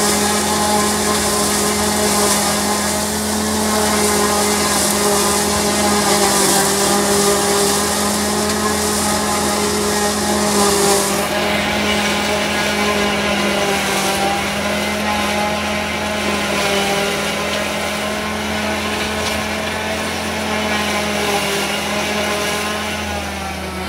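Fiat 666 diesel tractor engine running steadily under load, driving a Mengele maize forage harvester whose chopper and blower add a rushing hiss. The hiss is heavier in the first half and eases about halfway through.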